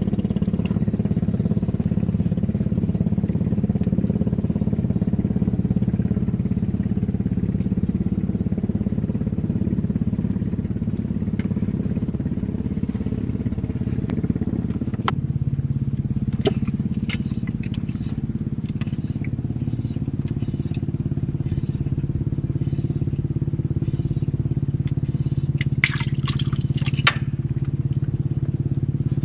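Small boat engine on a motor raft running steadily, its note changing about halfway through. A few sharp clicks, and a short clatter near the end.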